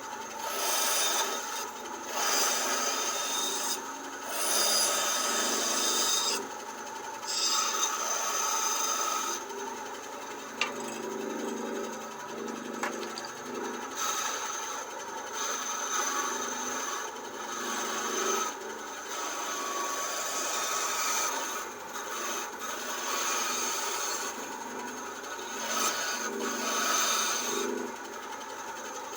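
Hand tool working wooden handle stock, about a dozen rasping strokes of a second or two each with short pauses between them.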